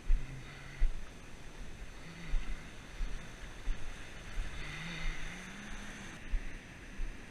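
Ocean surf washing onto the beach, with wind gusting across the microphone in irregular low rumbles that are the loudest sounds.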